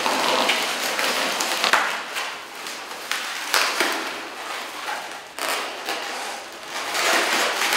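Latex balloons rubbing against each other as an inflated round balloon is pushed and wedged into the twisted bubbles of purple modelling balloons, in several surges of rubbery rustling.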